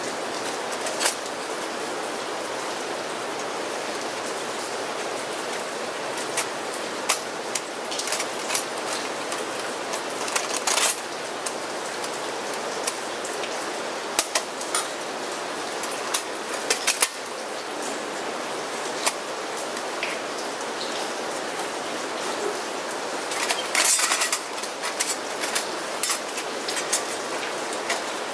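Thin metal panels of a Onetigris Rocuboid flat-pack stove clicking and scraping as they are slotted together by hand: scattered sharp clicks, with a quick cluster of them near the end. Under it runs a steady hiss of rain.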